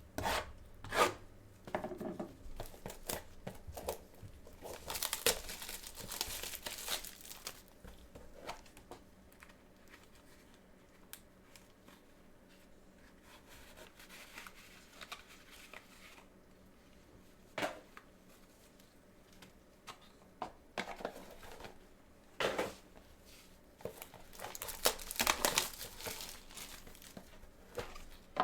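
Plastic wrapping crinkling and tearing as a box of trading cards is unwrapped and opened, with scattered clicks and taps of handling. The crinkling comes in two longer stretches, about five seconds in and again near the end.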